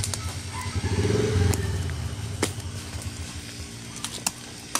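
A motorbike engine passes, swelling to its loudest about a second and a half in and then fading. Afterwards come a few sharp knocks of a machete on the coconut palm trunk.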